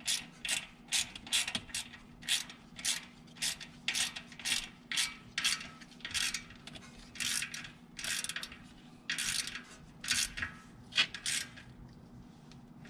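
Ratchet wrench clicking in short bursts, about two a second, as the small screws of a Maverick X3's oil filter cap are run down. It stops near the end.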